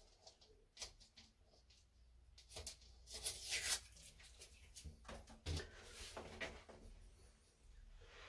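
Faint handling noises: a few light clicks and knocks, with a brief rustle about three seconds in, as parts are picked up and handled.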